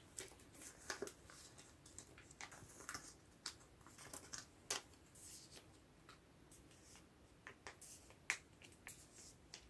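Faint rustling and scattered light clicks of sleeved photocards being handled and slid into the pockets of plastic binder pages.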